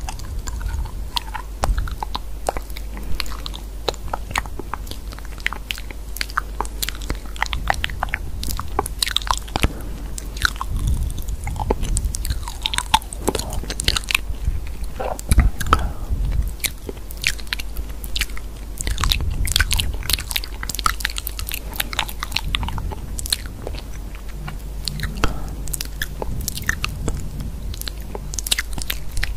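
Continuous irregular crisp clicks and crunching sounds, several a second, over a steady low hum.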